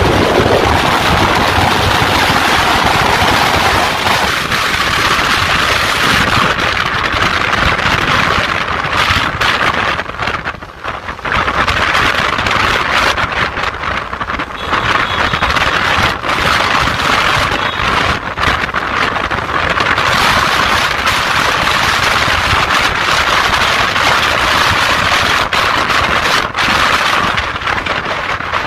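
Steady rush of wind over the microphone, mixed with the road and engine noise of cars and motorcycles, recorded from a moving vehicle in traffic. The loudness dips briefly about ten seconds in.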